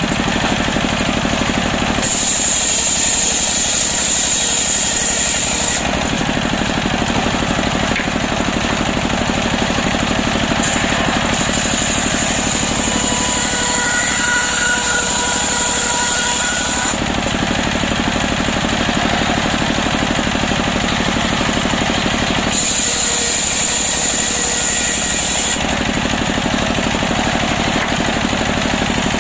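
Belt-driven table circular saw running steadily off a stationary engine, ripping waru (sea hibiscus) planks. A high-pitched cutting whine rises over the engine's running three times, at about two seconds in, from about ten to seventeen seconds, and again near the end, as each plank goes through the blade.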